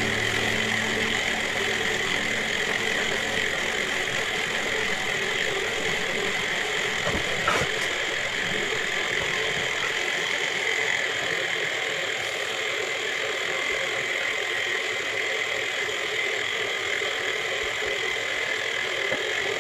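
Electric milk frother with a stainless-steel jug running steadily, its motor whirring as it heats and froths milk for a latte macchiato. A single small click comes about seven seconds in.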